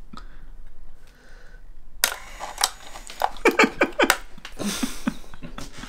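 Irregular clicks and rattles from a small black hinged prop box being handled and its lever worked, starting about two seconds in.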